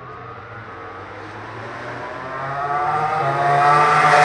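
MotoGP racing motorcycle approaching at speed: its engine note climbs in pitch and grows steadily louder, loudest near the end as the bike reaches the grandstand.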